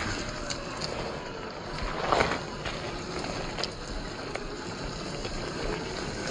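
Traxxas TRX-4 scale RC crawler's electric motor and gear drive whirring as it crawls over loose stones, with scattered clicks and crunches of rocks under the tyres.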